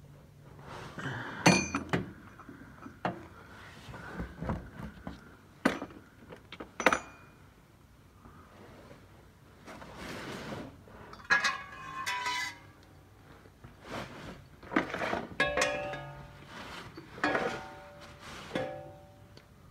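Metal tools and parts clinking and knocking in an irregular run of separate strikes, several of them ringing briefly.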